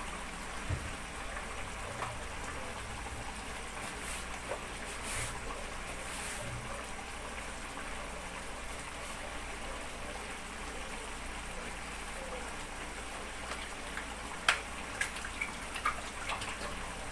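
Taro leaves in coconut milk simmering in a wok, a steady bubbling hiss. A few sharp light clicks come near the end.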